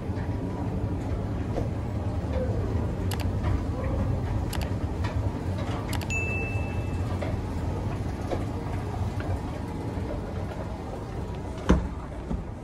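An escalator running with a steady low hum and a few light clicks. A brief high beep comes about six seconds in, and there is a thump near the end.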